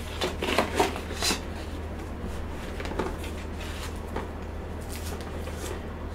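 A few light knocks and papery rustles in the first second and a half, then faint scattered ticks: a frozen cheesecake and its cardboard base and wrapping being handled on a counter.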